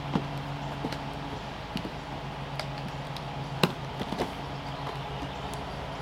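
Cardboard trimmer box being handled and opened on a plastic truck-bed tailgate: scattered light taps and knocks, the loudest about two-thirds of the way through. A steady low hum runs underneath.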